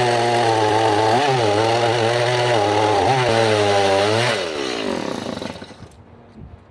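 Chainsaw engine running at high revs, its pitch dipping briefly twice. About four seconds in it winds down, the pitch and loudness falling away.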